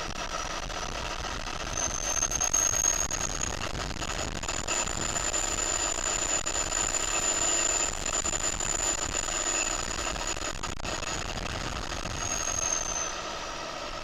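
Zetor Crystal 16145 Turbo tractor's turbocharged diesel engine running under way, with a high turbo whistle. The whistle rises and the engine gets louder about two seconds in, then the whistle falls away near the end.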